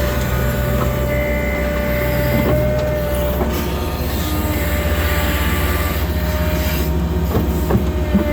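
Case 580 Super N backhoe loader running steadily, a low diesel hum with a high, steady whine over it and a few short metallic knocks, most of them near the end.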